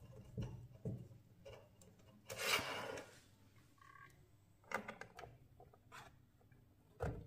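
Scattered small clicks, taps and rubbing of objects being handled on a workbench, with a louder scraping hiss about two and a half seconds in and a brief two-tone beep around four seconds.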